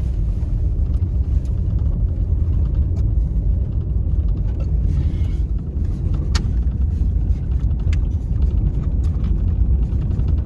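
Truck driving on a gravel road: a steady low rumble of engine and road noise, with occasional sharp ticks.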